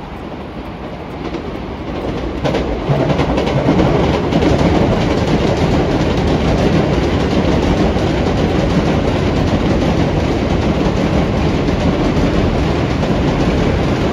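Freight train hauled by an electric locomotive passing at close range, its container wagons rumbling and clattering over the rails. The sound grows louder about two to three seconds in and then holds steady.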